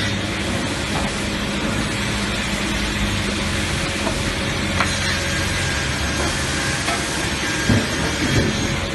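MJ141 multi-saw edging machine running, a steady motor hum with a noisy whir from the saws, and a few light knocks near the end.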